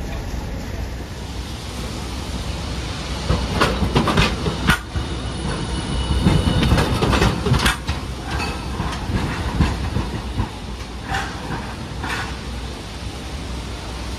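Hiroden Green Mover LEX low-floor tram rolling past over the rail joints and points, its wheels clacking, loudest a few seconds in as it draws level. There is a brief squeal of wheel on rail.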